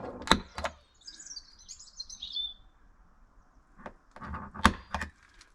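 Sharp snapping clicks of an automatic centre punch marking drill points on the door: two near the start and a few more about four seconds in. A bird chirps briefly in between.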